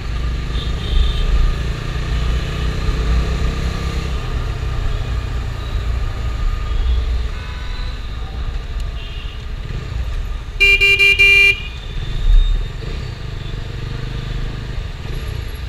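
Bajaj Dominar 250's single-cylinder engine running under way. About ten and a half seconds in, a vehicle horn sounds once for about a second.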